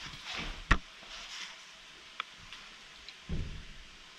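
A few faint knocks and clicks in a quiet room, the sharpest about three-quarters of a second in and a smaller one a little past two seconds, with soft rustles around them.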